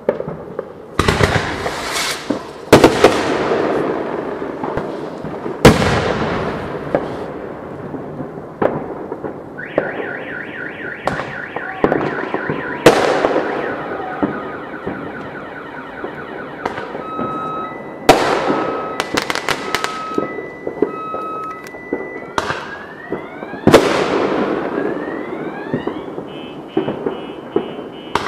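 Firework shells bursting, about a dozen sharp booms and cracks with rumbling echoes. From about ten seconds in a car alarm goes off, cycling through rapid pulsing tones, steady beeps and rising sweeps.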